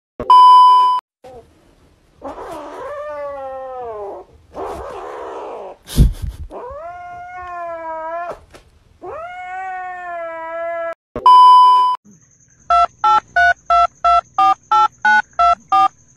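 A cat's meows and drawn-out yowls: first a rough call falling in pitch, then two long, steady meows. A steady electronic test-tone beep sounds at the start and again about eleven seconds in. Near the end comes a quick run of about ten short electronic beeps, roughly three a second.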